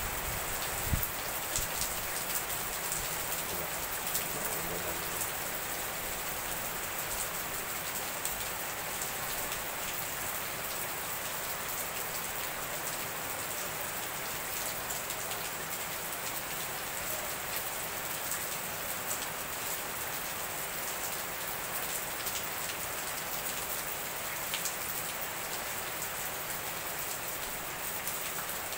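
Heavy rain pouring onto waterlogged paving and foliage: a steady, dense hiss with scattered sharper drips and splashes.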